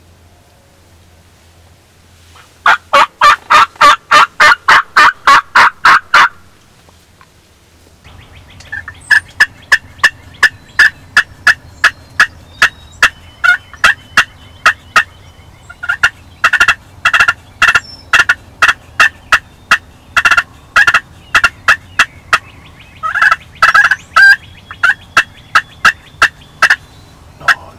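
Turkey yelping: loud, rapid, evenly spaced yelps at about four a second. A first run of about four seconds is followed by a pause, then a long run that goes on with short breaks to near the end.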